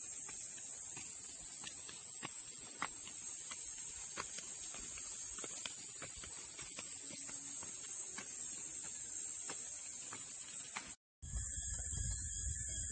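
Steady, high-pitched drone of forest insects, with faint irregular footfalls on stone steps. It drops out for an instant about eleven seconds in and comes back louder over a low rumble.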